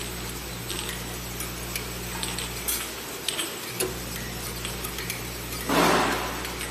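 Automatic bottle screw-capping machine and conveyor running: a steady motor hum with scattered light clicks and clinks of the glass bottles and caps. Just before the end there is a short, loud rush of noise.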